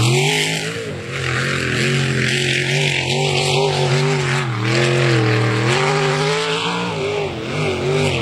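Jet sprint boat's 606-cubic-inch Donovan big-block Chevy V8 running hard. Its engine speed dips just at the start and again about a second in, around five seconds in and near the end, each time climbing back up.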